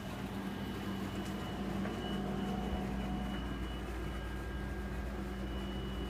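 Steady low hum of room or machine noise, with a faint high-pitched whine above it.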